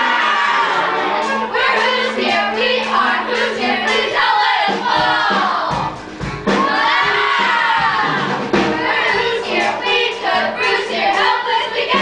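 Middle-school cast singing a chorus number from a stage musical over a musical accompaniment. A low beat comes in about five seconds in.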